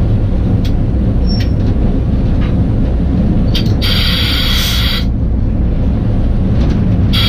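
GE diesel-electric switch engine heard from inside its cab while running: a loud, steady low rumble, with a hiss of air about four seconds in that lasts about a second, and another at the very end.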